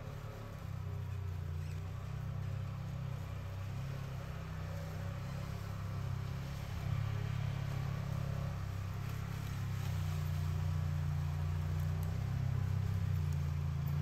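Polaris RZR 900 side-by-side's twin-cylinder engine running at low revs as it crawls up a rutted trail, its low note shifting slightly and growing louder as it comes closer.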